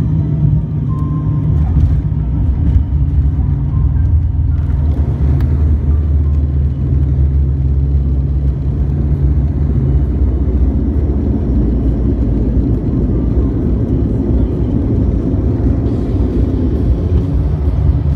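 Airliner cabin noise during the landing roll, heard from a window seat over the wing: a loud, steady rumble of the wheels on the runway and the engines. The low engine hum eases about ten seconds in as the plane slows.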